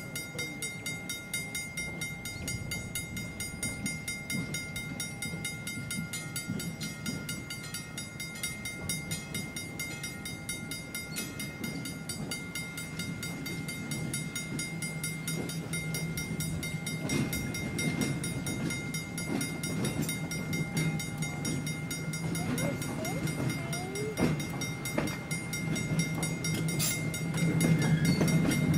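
Railroad grade-crossing signal bell ringing steadily with a fast, even beat. A trolley car approaches, its rumble growing through the second half and loudest near the end.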